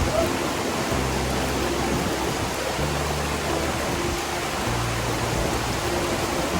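Steady rushing roar of a large tiered waterfall, under background music whose low bass notes change about once a second.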